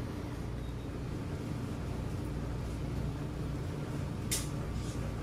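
Steady low background hum, with a brief sharp rustle or click about four seconds in and a fainter one just after.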